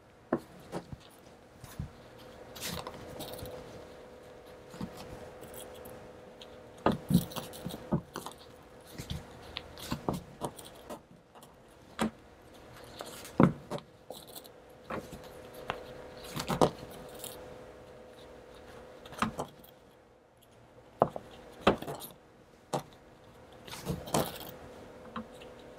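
Heavy canvas fabric rustling and straight pins clicking and tapping against a wooden worktable as two pieces are pinned together, in scattered light knocks, over a faint steady hum.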